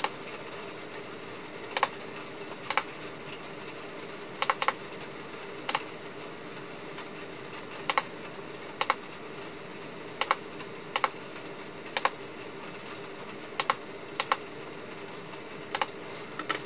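Sharp clicks of the KOORUI 22N1 monitor's menu buttons being pressed one at a time, at irregular intervals of about one to two seconds, some in quick pairs, over a steady hum.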